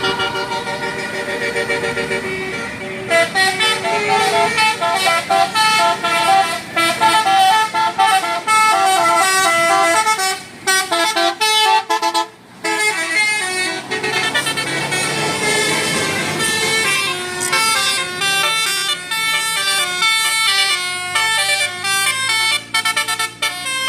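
Bus 'telolet' musical air horn playing quick melodic runs of short, stepped notes, with a brief break about halfway through.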